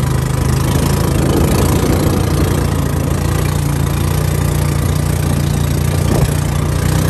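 Boat engine running steadily while the boat is under way.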